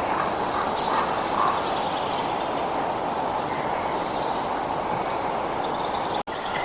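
Nature ambience: a steady rushing noise with a few short, high bird chirps over it. The sound cuts out for a split second near the end.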